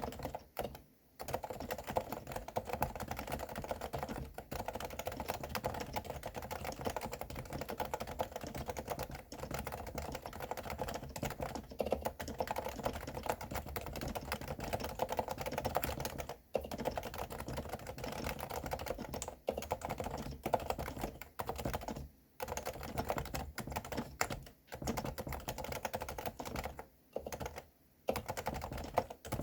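Continuous fast typing on a Realforce R2 Silenced keyboard with 45 g Topre electrostatic capacitive switches, the keystrokes damped to a soft, low thud. A few brief pauses break the typing, the longest about 27 seconds in.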